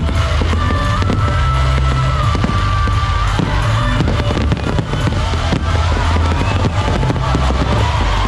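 Aerial fireworks bursting and crackling in rapid succession, over loud music with a heavy bass and a melody line.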